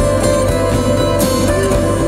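Background music played on plucked strings, such as guitar.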